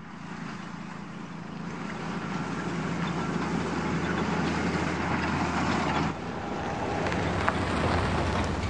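Steady low rumble of a motor vehicle's engine, slowly growing louder, with a brief dip about six seconds in.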